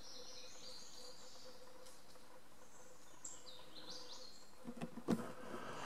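Woodland birds singing short, high, stepped phrases twice, over a faint steady hum. A few footsteps sound near the end.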